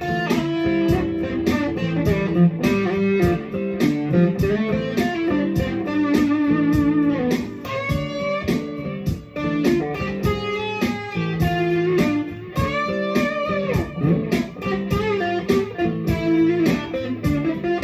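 Electric guitar playing a lead melody, with wavering vibrato on held notes and slides in pitch.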